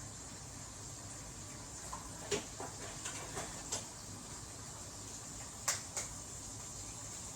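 A few light, sharp clicks and taps over a faint steady hiss: eggs being cracked and handled at a non-stick pot. The taps come in two clusters, several in the first half and a pair near six seconds.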